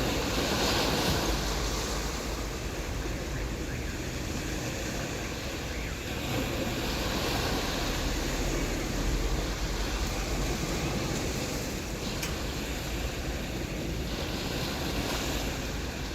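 Surf breaking and washing up a beach, the hiss of the waves swelling and fading three times, with a low wind rumble on the microphone.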